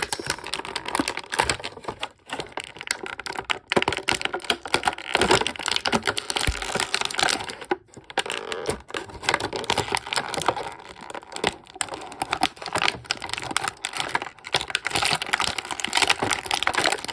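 Plastic toy packaging crackling and clicking as it is handled and pulled at, with quick irregular clicks throughout.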